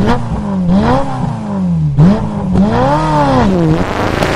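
Car engine revving up and down several times, its pitch rising and falling with each blip of the throttle.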